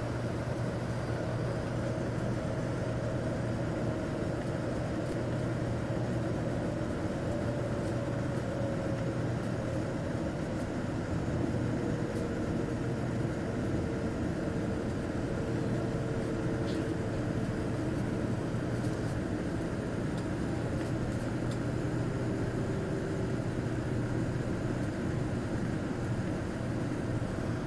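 Airliner cabin noise on the approach: a steady drone of jet engines and airflow, with a faint whine that slowly falls in pitch.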